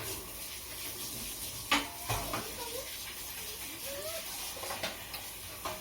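A talking bird chattering in short, wavering, voice-like sounds, with a few sharp clicks in between.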